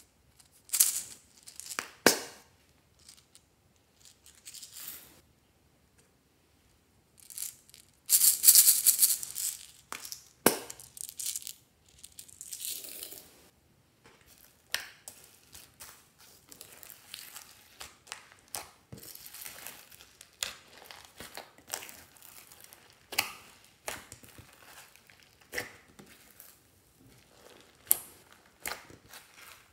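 Small plastic beads and sprinkles rattling as they are poured into a glass dish of slime, a loud spell of about three seconds, with a couple of sharp clicks before it. Then a long run of small clicks, crackles and squishes as fingers press into and knead the bead-covered slime.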